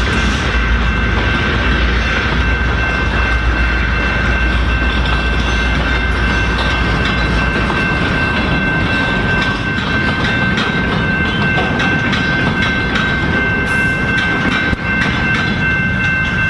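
Canadian Pacific freight cars rolling through a grade crossing, wheels clicking over the rail joints. A low rumble drops away about eight seconds in. A steady high ringing from the crossing signal's bell runs throughout.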